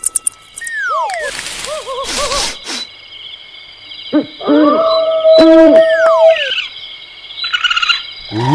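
A string of animal-style sound effects: sliding whistle tones, short repeated hooting calls, a tone held for a couple of seconds, and bursts of hiss.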